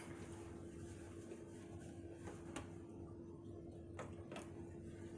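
Quiet room with a steady low hum and a few faint clicks in the second half.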